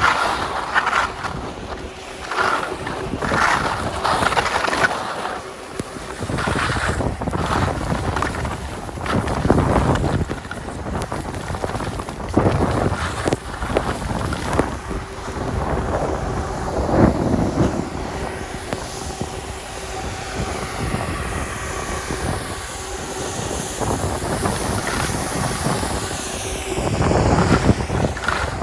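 Skis hissing and scraping over snow through a series of turns, in surges every couple of seconds, with wind buffeting the microphone.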